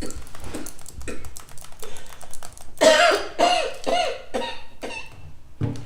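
A woman coughing in a fit of repeated coughs, with the hardest run of about four coughs near the middle.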